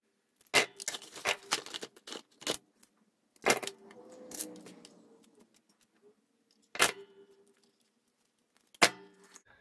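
Sharp metallic clicks and clacks of hand tools working a wire: a wire stripper/crimper on insulated wire, then crimping pliers squeezing a connector end onto it. The clicks come in a quick cluster at first, then singly every few seconds.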